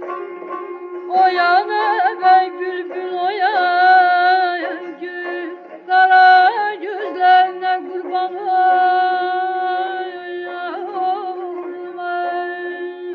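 Azerbaijani Kəsmə şikəstə folk music: an ornamented, wavering melody in short phrases over a steady held drone note.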